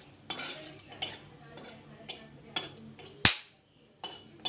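Metal spatula stirring and knocking against a metal karahi as whole spices fry in oil: sharp clicks and knocks roughly a second apart, the loudest about three seconds in.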